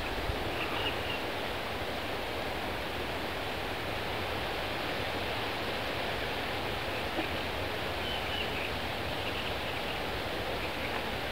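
Steady outdoor background hiss with no distinct source, and a few faint high chirps about a second in and again around eight seconds in.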